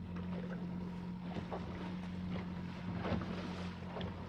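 Tiller-steered outboard motor running steadily as the small boat cruises, a constant low drone, with water slapping and splashing against the hull through the chop at irregular moments and wind on the microphone.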